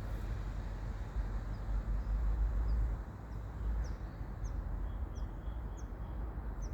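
A small bird's short, high, rising chirps, starting about a second and a half in and repeating roughly every half second, growing stronger. They sit over a steady low rumble.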